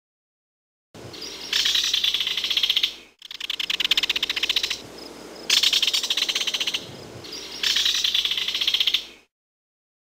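Kingfisher giving its harsh, rattling call: rapid trains of sharp clicks that swell into three louder stretches, with a short break about three seconds in, stopping about nine seconds in.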